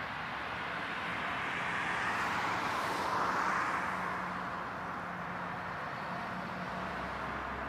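Boeing 747's four jet engines at takeoff power: a steady rushing jet noise that swells to a peak about three seconds in and then eases back.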